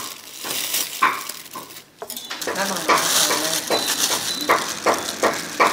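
Chopsticks clicking against a bowl as noodles are stirred. After a short break comes the crinkle of a plastic bag being emptied, with wavering animal-like calls and a run of sharp clicks about twice a second.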